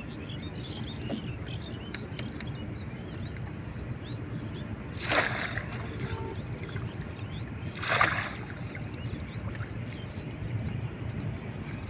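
River water splashing twice, about three seconds apart, each splash lasting about half a second, over a steady low rumble with small birds chirping.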